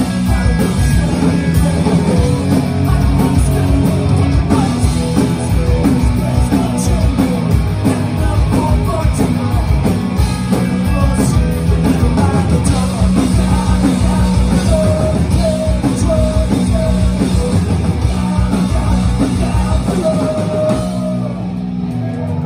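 Punk rock band playing live: distorted electric guitars, bass and drums with vocals, loud and dense. About 21 seconds in the playing drops off and the sound thins as the song ends.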